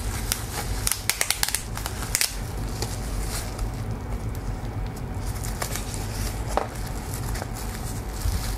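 Crinkling and crackling of a plastic bubble-wrap packaging bag being handled, a dense run of crackles about a second in, then a few scattered light clicks, over a steady low hum.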